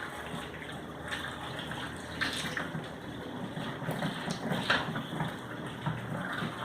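Water running steadily from a tap, with scattered light knocks and clicks.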